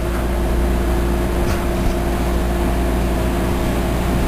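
A steady low mechanical hum with a few constant tones in it, unchanging throughout.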